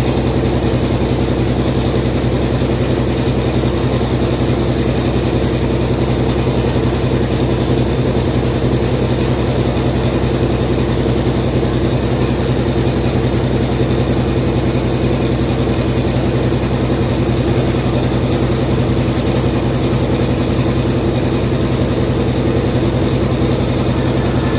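Continental Aqua 16 kg washing machine in its spin cycle, the motor and drum running at a steady speed with a constant hum.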